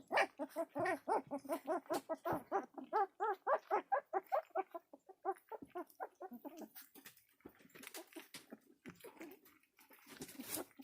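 Border collie puppy whining and whimpering in a rapid string of short, rising-and-falling cries, about four a second, for roughly the first five seconds. After that come softer clicking and wet lapping sounds of the puppies eating.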